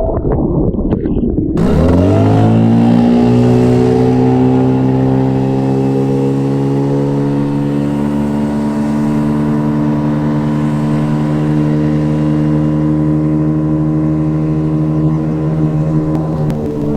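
Tohatsu 9.8 hp two-stroke outboard driving the dinghy at full throttle: its pitch rises over a second or two as the boat accelerates onto the plane, then holds steady at top speed.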